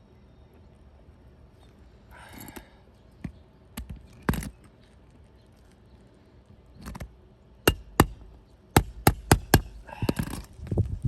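Metal roofing tool worked under brittle asphalt shingles to get at the nails: short scraping rustles, a few knocks, then a quick run of about six sharp taps.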